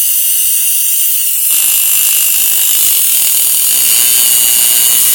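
Compressed air at 40 psi hissing steadily through a homemade water spark plug fitting. About a second and a half in, the air compressor kicks on and keeps running under the hiss.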